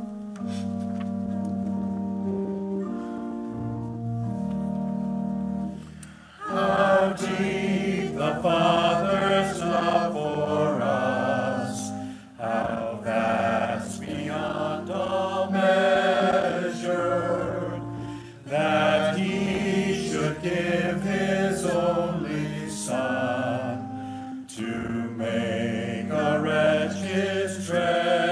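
Church organ playing held chords, then from about six seconds in a choir sings a hymn with the organ accompanying.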